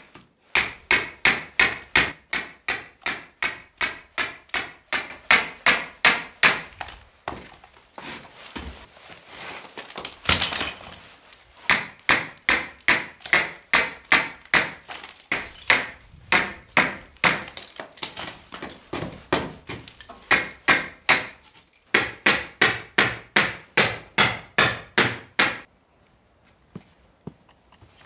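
Hammer blows in quick runs of about three a second, each strike with a short ringing tone, broken by brief pauses and stopping a couple of seconds before the end.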